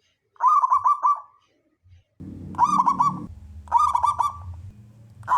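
Zebra dove (perkutut) cooing: three short phrases, each a quick run of about four rolling notes.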